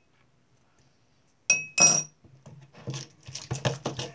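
Two sharp, ringing clinks of a metal teaspoon against a drinking glass about a second and a half in, then a run of soft, irregular sounds of slime being worked by hand in a plastic bowl.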